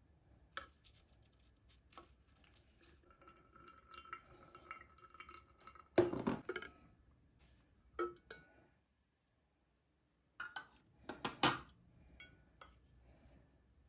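Dishes, glassware and utensils clinking and knocking on a hard surface in small, scattered handling sounds, some with a brief ring. The loudest knock comes about six seconds in, and a quick cluster of knocks comes near the end.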